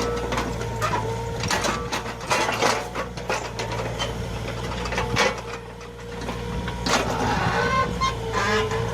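Komatsu PC20 mini excavator at work: its diesel engine runs steadily under a high steady whine, with repeated sharp clanks and knocks throughout.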